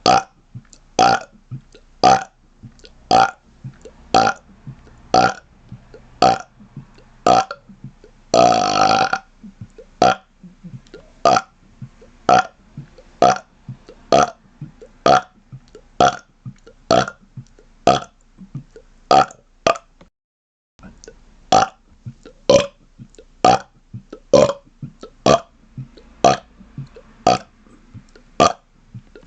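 A man burping rapid-fire: short, clipped burps about one a second, with one longer, drawn-out burp about nine seconds in. The burps stop for a brief silent break about two-thirds of the way through, then go on at the same pace.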